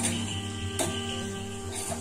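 Instrumental background music with held notes, and one sharp knock of a metal spatula against the metal kadhai a little under a second in.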